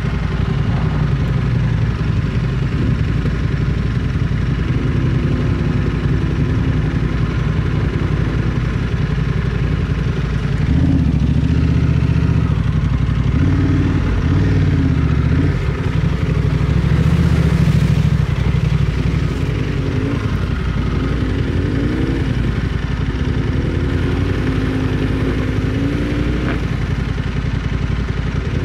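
Motorcycle engine running under changing throttle while riding, its pitch rising and falling repeatedly. It is loudest from about 11 to 18 seconds in.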